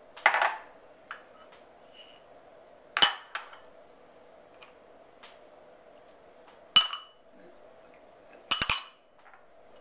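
Glass dishes clinking against a large glass mixing bowl as dry ingredients are tipped in: four separate clinks a few seconds apart, the last a quick rattle of several knocks.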